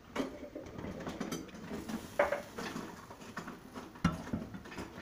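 Pink spatula stirring cream in a stainless steel saucepan, scraping and knocking against the pan in irregular strokes, with sharper knocks about two seconds in and again about four seconds in.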